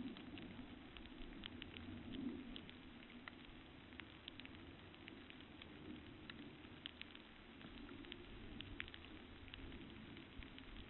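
Faint rain: irregular raindrop ticks, several a second, over a steady low hiss.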